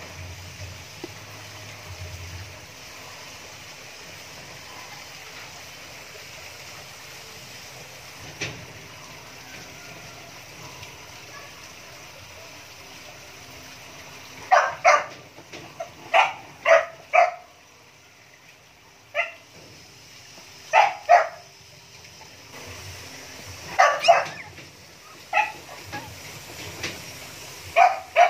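Young husky puppies giving short, high squeaks and yips, often in quick pairs. They begin about halfway through and come every second or two.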